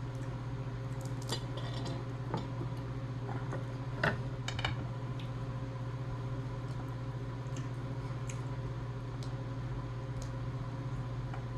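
Scattered clinks and clicks of a messy seafood-boil meal being eaten: shells, utensils and dishes knocking together, the loudest about four seconds in with a quick few just after it. A steady low electrical hum runs underneath.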